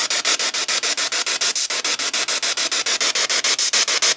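Ghost box session: a portable radio sweeping rapidly through stations, played through a small JBL speaker, gives a static hiss chopped into even pulses about ten times a second. The investigators read a voice into it, captioned 'tylko narzeka?' ('only complains?').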